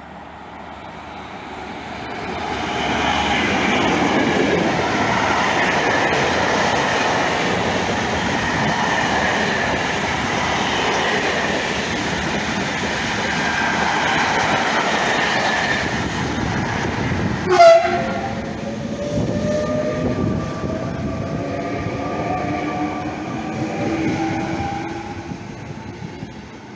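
Freight train of open wagons rolling past close by, a steady rumble and rattle of wheels on rail that builds up over the first few seconds. About two-thirds through comes one sudden loud crack, then a double-deck electric TER train passes with a traction-motor whine that slowly rises in pitch.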